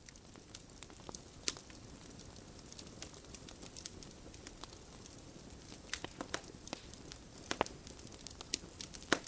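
Faint, irregular crackling: scattered sharp clicks and pops over a low hiss.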